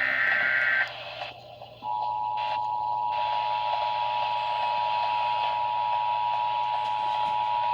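Emergency Alert System broadcast heard over radio hiss. The last burst of the digital SAME header data warbles for under a second, and after a short gap the two-tone EAS attention signal starts about two seconds in and holds steady. It is the signal that an emergency alert message is about to be read.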